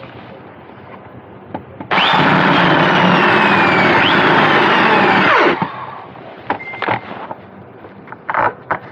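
Power drill with a step bit boring a hole through the motorcycle pannier: a loud run of about three and a half seconds, its whine falling in pitch twice as the bit cuts. A few light clicks and knocks follow.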